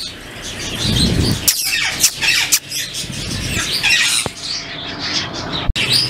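Many caged parrots and small birds squawking and chirping at once, calls overlapping, with a short knock near the end.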